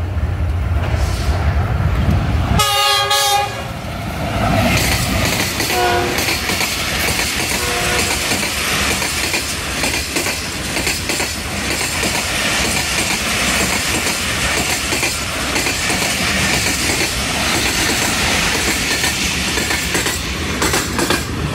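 Passenger train passing through a station: the diesel locomotive rumbles as it nears and gives a short horn blast about three seconds in, then the coaches run past with steady wheel clatter on the rails.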